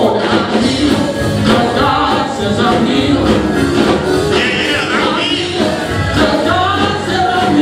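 Gospel song: voices singing over instrumental backing with steady bass notes.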